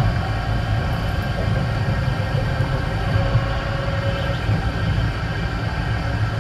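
E-class tram running at speed on straight track, heard from inside the car: a steady low rumble of wheels on rail with several faint steady tones above it.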